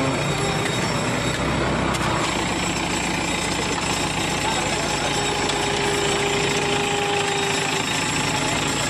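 Diesel engine of a backhoe loader running steadily, its note unchanging throughout.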